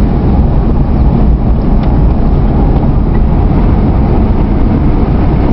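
Steady road and engine noise of a car being driven, a loud even rumble strongest in the low end.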